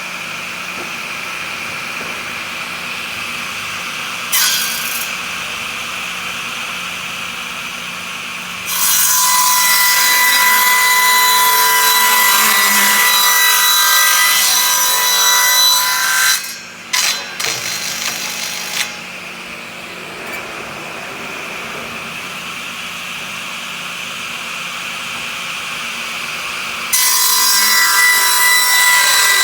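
Power saw cutting wood: a steady hum as it runs free, then two long loud cuts with a whine, one from about 9 to 16 seconds in and another starting near the end. A few knocks come as the wood is handled between cuts.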